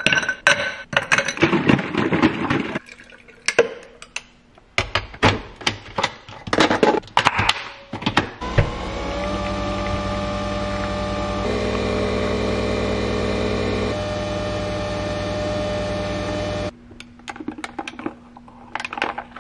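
Ice cubes clinking into a glass jar, followed by a Nespresso coffee machine running steadily for about eight seconds as it brews espresso into the glass, its pitch shifting a couple of times before it stops suddenly. A few light clinks of a glass straw stirring the iced coffee follow near the end.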